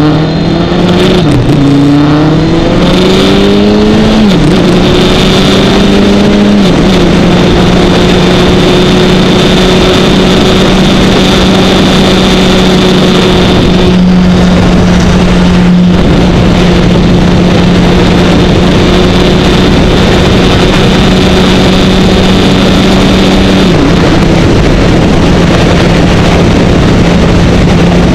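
Kawasaki Ninja 1000 motorcycle's inline-four engine accelerating through the gears, its pitch rising and dropping at three upshifts in the first seven seconds, then running at a steady cruise. Steady wind noise runs underneath, and the engine pitch dips briefly near the end.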